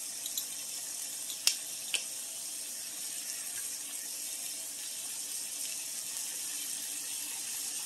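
Thin bone-in pork chops sizzling steadily in a frying pan, with two small clicks about one and a half and two seconds in.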